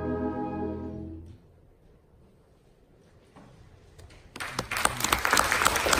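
Wind ensemble holding the final chord of the piece, released just over a second in. After a brief hush, the audience breaks into applause about four seconds in.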